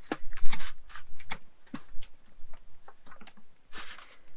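Irregular light clicks and taps, with a couple of short scratchy rustles, as a collapsible measuring cup is pressed and worked down through a slice of bread onto a plate to cut out a round.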